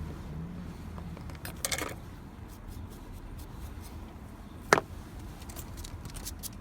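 Small clicks and handling noises of a car key and its parts being worked by hand, with one sharp click about three-quarters of the way through and a run of light ticks near the end, over a low steady hum.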